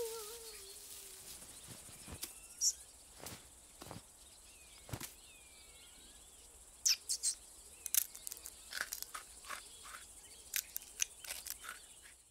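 Faint countryside ambience for a cartoon field: a steady high insect-like hiss with a few faint bird chirps, and small sharp clicks and rustles that come more often in the second half. A long call trails off in the first second.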